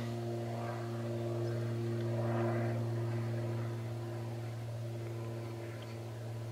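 Steady low hum with a few fainter higher tones above it, unchanging throughout.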